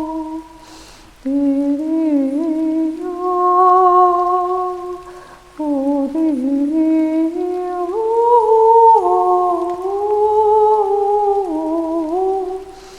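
A woman's wordless singing, humming long, slowly gliding notes in a free, improvised melody. She takes short breaths about a second in, near the middle and near the end.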